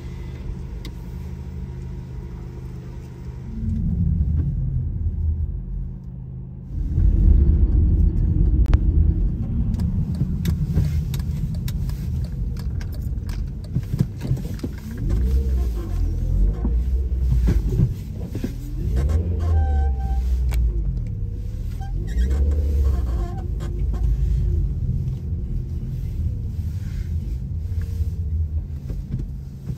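A car in motion: a steady low engine and road rumble that gets louder about seven seconds in, with rising and falling pitch as it speeds up and slows.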